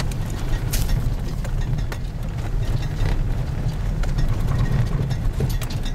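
Steady low rumble of an off-road 4x4 driving, heard from inside the cab, with a few faint clicks.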